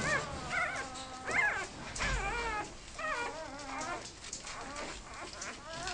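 Goldendoodle puppy whimpering and yipping: a string of short, high whines that bend up and down in pitch.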